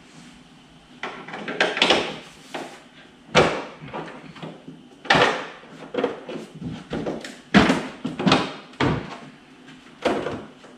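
Widebody side skirt and front guard being pushed into place and loosely bolted together by hand: irregular knocks, clunks and scrapes of the body panels, about a dozen over the stretch.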